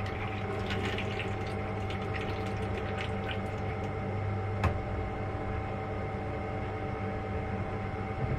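Small brewing pump humming steadily while liquid and air gurgle and crackle through the lines over the first few seconds, with one sharp click a little before halfway. The pumps are not pumping well, and the brewer suspects air trapped in the system, an airlock.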